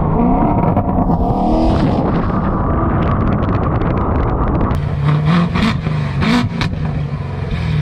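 Modified C7 Corvette Grand Sport's 6.2-litre V8 accelerating, its pitch climbing in the first second before a loud, dense stretch of full-throttle exhaust. From about five seconds in it revs up and down several times, with sharp crackles in the exhaust.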